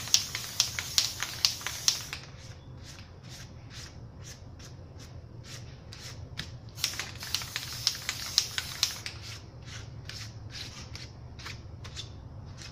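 A run of sharp taps or clicks, about two or three a second, louder at the start and again in a burst in the middle, fainter in between.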